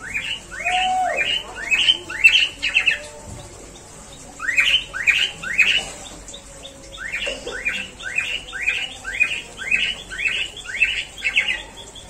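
A bird calling in runs of short, down-sliding chirps, about three a second. It gives three bouts: a run of about eight, a short run of three, then a longer run of about a dozen.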